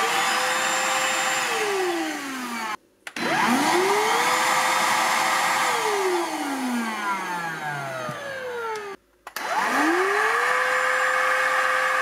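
Silvercrest 22.2 V cordless cyclonic stick vacuum running with its motorised floor brush. It is switched on and off three times: each time a rising whine as the motor spins up, a steady run, then a falling whine as it coasts down.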